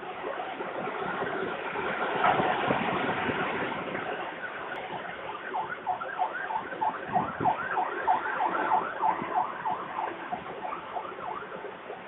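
Peregrine falcon calling: a rapid series of short rising-and-falling calls, about three a second, starting about halfway through, over steady wind noise on the microphone.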